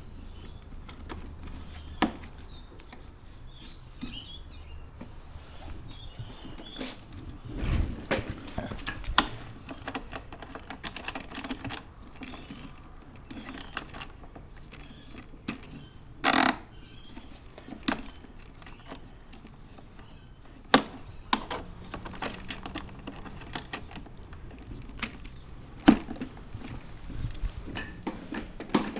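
Handling noise while assembling a cordless lawn mower: scattered clicks and knocks of plastic and metal parts being fitted and moved, with one louder brief clatter about halfway through.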